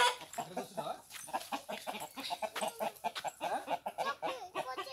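Several chickens clucking, their short calls overlapping in quick succession.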